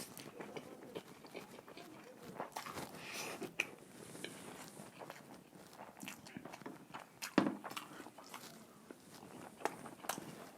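Close-up mouth sounds of a person eating chicken: scattered chewing, lip smacks and small crunches, with one sharper bite about seven seconds in.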